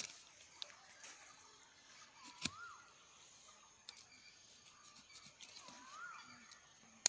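A bird gives a short whistled call that rises and falls, repeating about every three seconds, with a few sharp clicks among the calls, the loudest about two and a half seconds in.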